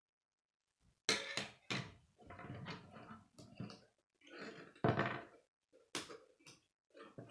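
Plastic K'nex rods and connectors clicking and clattering against each other and the wooden tabletop as assembled sections are handled and fitted together. A run of sharp clicks and knocks starts about a second in.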